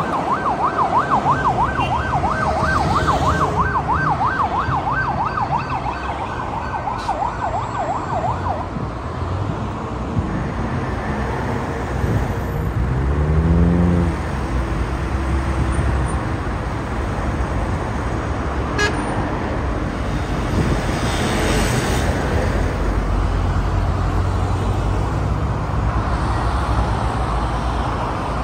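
Steady noise of heavy multi-lane city traffic. For the first eight seconds or so an emergency siren yelps over it in a fast rising-and-falling wail, about three sweeps a second. Around thirteen seconds in, a vehicle's engine climbs in pitch as it accelerates past, the loudest moment.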